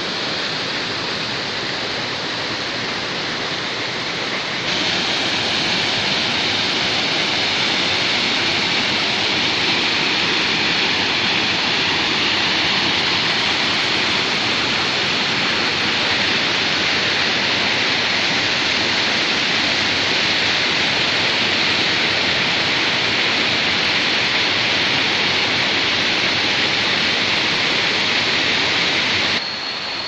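Water rushing and splashing down a rocky cascade close by, a steady loud rush that grows louder and brighter about five seconds in.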